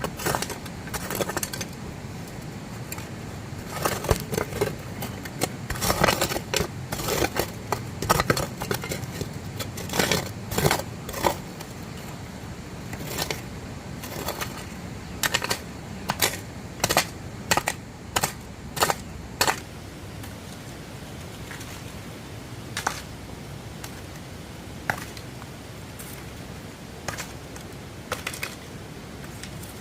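A run of irregular sharp clicks and knocks, dense for the first two-thirds and then only a few scattered ones, over a steady hiss.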